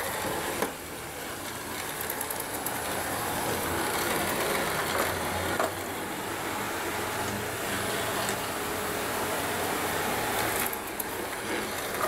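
ILIFE A4 robot vacuum cleaner running steadily, its suction motor and brushes humming as it travels over a rug and onto hardwood floor. There are a few brief knocks along the way.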